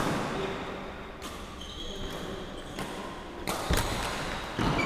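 Badminton rally: sharp racket strikes on the shuttlecock, several in a row about a second apart, ringing in the hall, with short squeaks of court shoes on the wooden floor between strikes.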